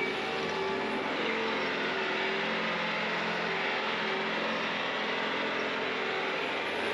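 Bobcat T66 compact track loader's diesel engine running at full throttle, driving its snowblower attachment. A steady hum of held tones sits over a rushing noise, and neither changes.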